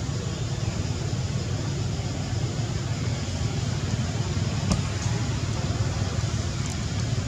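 Steady low background rumble, even throughout, with one faint click about five seconds in.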